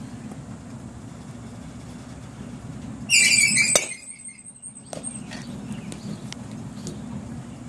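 A loud high squeal lasting under a second, cut off by the sharp crack of a softball bat hitting the pitched ball about four seconds in, after which the bat rings briefly with a thin high tone.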